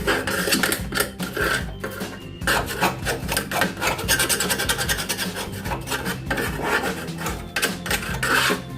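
Rust being scrubbed off a steel support frame by hand: repeated rasping, rubbing strokes of abrasive on metal.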